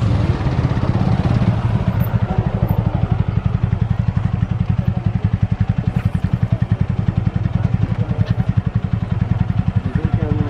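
An engine running steadily close by, with a rapid, even low beat.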